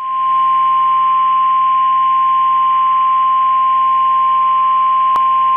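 NOAA Weather Radio warning alarm tone: a single steady, loud tone near 1 kHz, played through a weather radio receiver, announcing that a severe thunderstorm warning follows. A brief click sounds about five seconds in.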